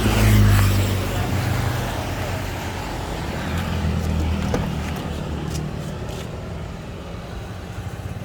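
A motor vehicle engine running, with road traffic noise. It is loudest about half a second in, eases off, and swells again about four seconds in.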